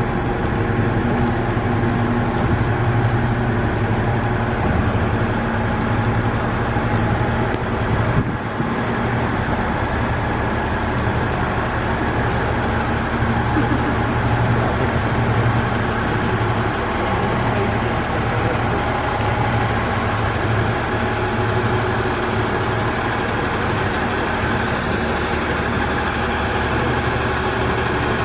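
Diesel railcar engine idling steadily, with one brief knock about eight seconds in.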